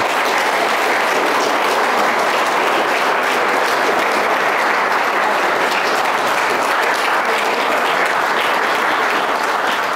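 A roomful of people applauding: many hands clapping together in a steady, dense patter.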